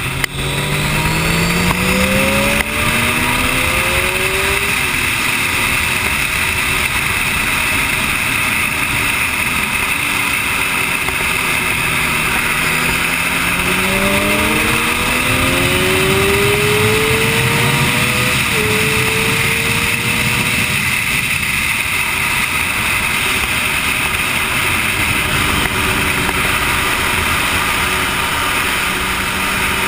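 Motorcycle engine at speed on a race track, heard through heavy wind rush on an onboard camera. Its pitch climbs twice as the bike accelerates out of corners, and the second climb ends in a sudden drop at a gear change about two-thirds of the way in.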